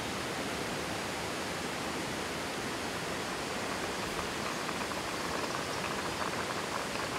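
Steady rushing of a mountain stream, with faint bubbling from rice coming to the boil in a kama rice pot from about four seconds in.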